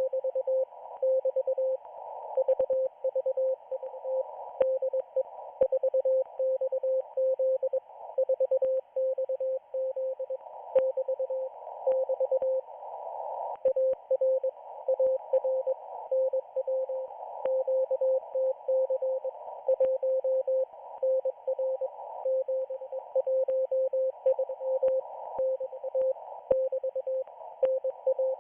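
Morse code from the Israeli Navy station 4XZ on a shortwave receiver: a single steady tone keyed rapidly into dots and dashes without pause. Behind it is narrow-filtered static hiss with scattered crackles.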